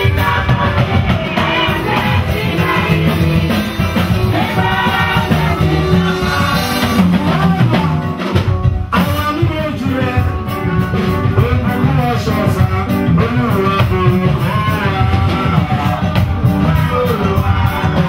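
Church worship music: voices singing over a drum kit and other instruments, loud and steady throughout.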